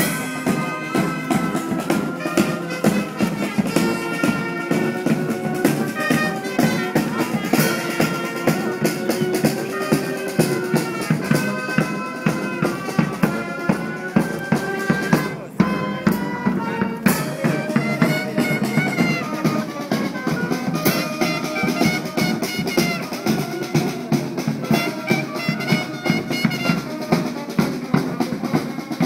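Marching band playing live: a brass melody over a steady beat of drums, including a bass drum, with a short break about halfway through.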